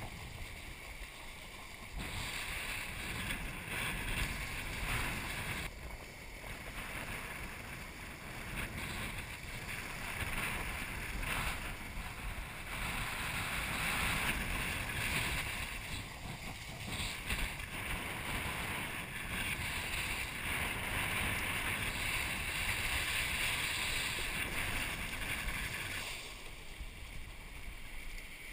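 Wind buffeting the microphone over the rush and spray of water as a kiteboard planes across the lagoon. The noise swells and eases every few seconds and drops somewhat near the end.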